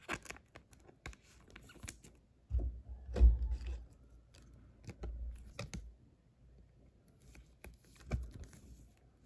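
A trading card being slid into a clear plastic penny sleeve and rigid toploader: scattered light plastic clicks and rustles, with a few dull handling bumps, the loudest about three seconds in.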